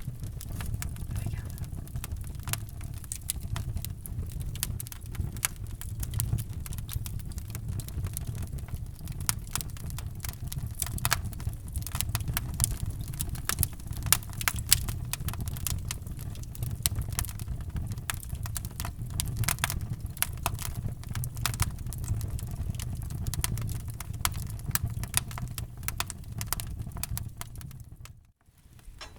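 Wood fire crackling in a fireplace: dense, irregular pops and snaps over a steady low rumble of the flames. The sound drops out almost completely for a moment near the end.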